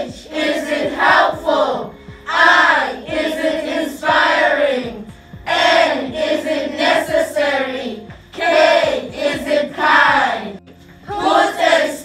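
A group of voices calling out together in short loud phrases, about one every second and a half, over background music.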